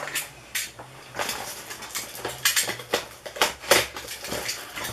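A shipping package being handled and cut open with a cutting tool: a quick, irregular series of rustles, scrapes and crackles.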